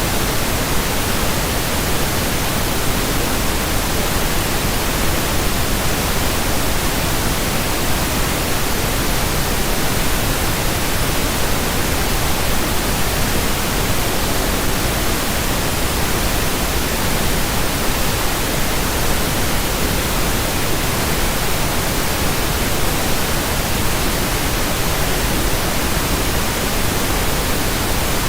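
Steady pink noise: an even, unchanging hiss spread across all pitches, with no other sound.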